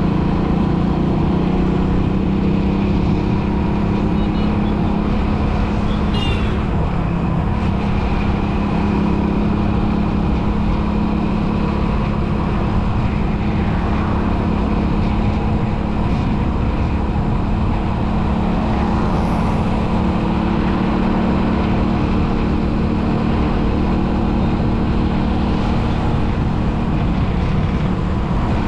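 Motor vehicle driving along a road: a steady engine hum under continuous road and wind noise.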